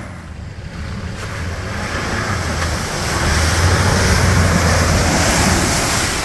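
Toyota Hilux four-wheel drive pushing through a deep mud hole: the engine drones steadily underneath a rush of splashing muddy water. The splashing builds about two seconds in and is loudest in the middle.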